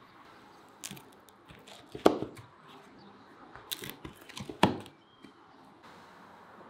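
A curved rocking knife pressing through the crisp baked crust of a meat pide onto a wooden board: a few sharp crunching cracks, the loudest about two seconds in and again a little past four seconds.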